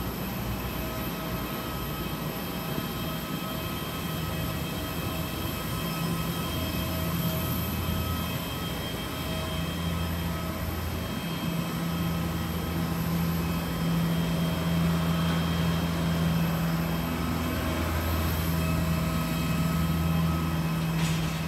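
A moving vehicle's steady rumble and hum, with several steady whining tones over it. It gets a little louder in the second half.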